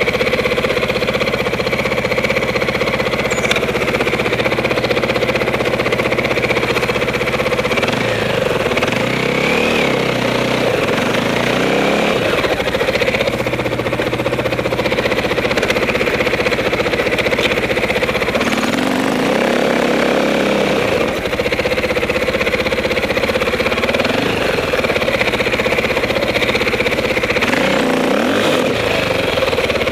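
Dirt bike engine running at idle, with the revs rising and falling a few times.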